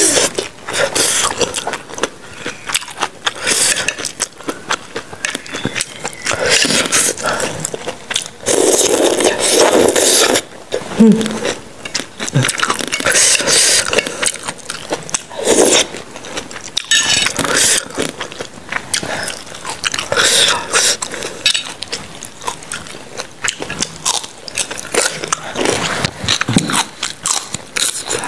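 Close-miked eating sounds: a metal spoon and fork scraping and clicking against a glass bowl of rice-vermicelli soup, with slurping and chewing.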